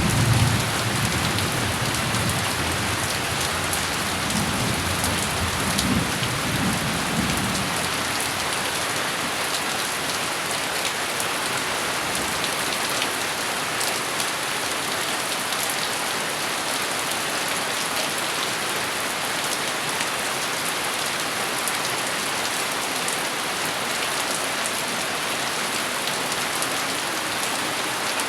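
Steady heavy rain falling, with a low rumble of thunder in the first several seconds that dies away.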